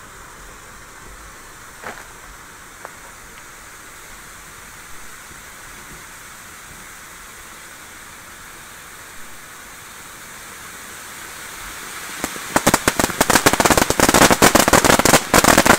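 Röder 'Drachenfeuer Gold' fireworks fountain burning with a steady hiss and a few small pops. About twelve seconds in it breaks into much louder, dense rapid crackling as the spray of gold sparks widens.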